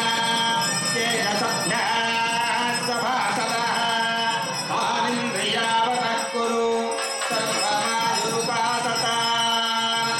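Indian devotional music: a melody over a steady drone, with small bells jingling.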